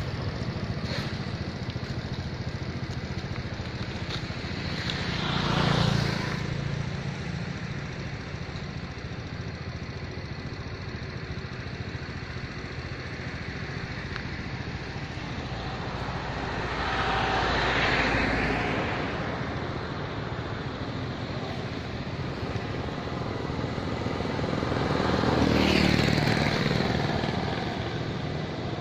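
Motor vehicles passing by three times, each swelling and fading over a couple of seconds, over a steady outdoor background hum.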